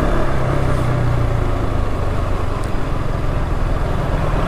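KTM RC 200's single-cylinder engine running steadily while the motorcycle is ridden slowly, over a continuous hiss of road and air noise.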